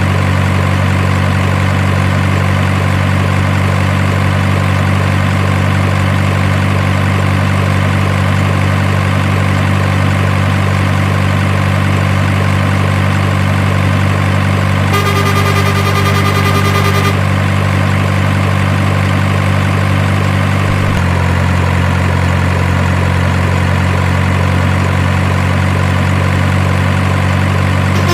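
Heavy engine idling steadily, with a short pitched beep-like tone of about two seconds midway through. The engine note drops slightly about three quarters of the way in.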